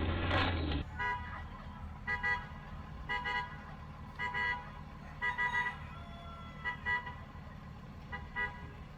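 A loud rushing noise cuts off just under a second in. Then a vehicle horn gives short beeps, singly and in pairs, about once a second, over a steady low engine hum.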